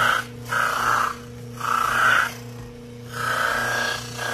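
Edge of a Kydex holster pressed against a spinning cloth buffing wheel on a bare electric motor, in about four passes of half a second to a second each, every pass a rasping rub over the motor's steady hum. The friction heats and slightly melts the Kydex, softening and chamfering the edge to a smooth, shiny finish.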